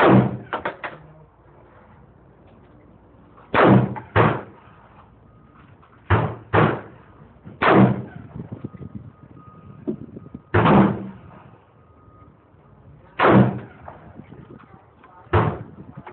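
Gunshots from a firearm being fired: about nine loud shots with a short echo after each, spaced one to three seconds apart and several in quick pairs about half a second apart, with a few fainter shots between them.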